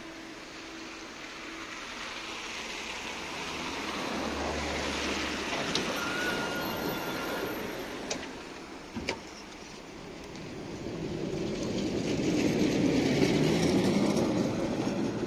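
71-619 tram pulling away from the stop and passing close by on snowy track, its running noise building to the loudest about twelve to fourteen seconds in and then easing as it moves off. A few sharp clicks sound about six, eight and nine seconds in.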